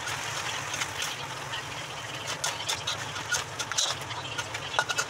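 A metal spatula scraping and clacking against a wok while stir-frying minced pork and string beans, over a steady sizzle and a low hum.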